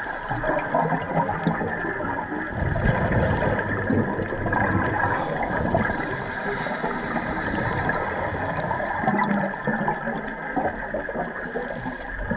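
Scuba breathing heard underwater: regulator exhaust bubbles gurgling and rushing in a continuous wash, swelling louder at times.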